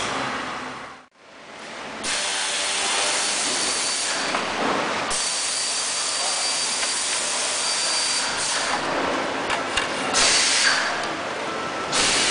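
Steady hissing machine noise, like a running power tool or compressed air. It fades out and back in about a second in, then holds steady with a few light ticks.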